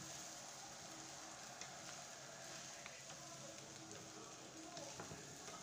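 Minced meat frying faintly in a wok, sizzling steadily, while a wooden spatula stirs it with now and then a light click against the pan.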